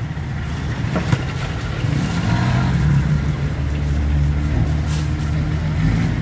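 Motor vehicle engines in passing road traffic, a steady low rumble that rises and falls slightly in pitch.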